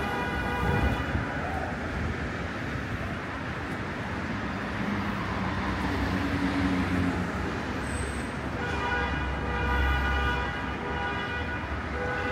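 City road traffic: a steady wash of passing vehicles with a low rumble. Near the end a sustained pitched tone with many overtones sets in and holds.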